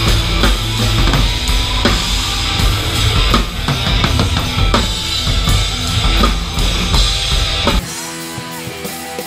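Live band music driven by a drum kit, with a heavy bass drum and snare hits and electric guitar. About eight seconds in the drums and low end cut off abruptly, leaving held guitar notes ringing.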